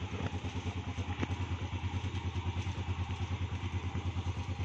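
Yamaha motor scooter's single-cylinder engine idling steadily, with an even, fast putter.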